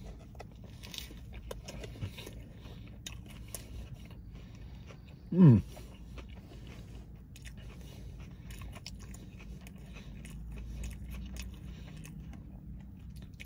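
Close mouth sounds of a person biting into and chewing a breaded-chicken burger with lettuce: soft crunches and small wet clicks. About five seconds in, a short hum of the voice falls in pitch.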